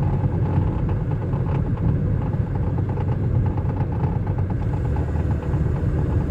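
Cabin sound of a 2005 Chevrolet Cobalt: steady road and engine rumble with a repeated knocking from underneath the front of the car that changes with speed. The owner suspects something tied to a wheel, the steering or the drivetrain.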